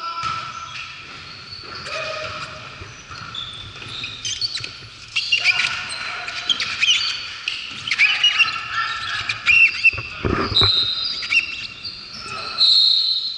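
Basketball game on a hardwood gym court: the ball bouncing, sneakers squeaking in short high chirps and voices echoing in the hall, with a heavy thud about ten seconds in.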